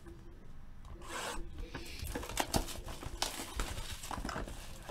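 Clear plastic shrink wrap being slit and pulled off a sealed trading-card hobby box: irregular rasping rips and crinkling plastic, with a few sharp clicks.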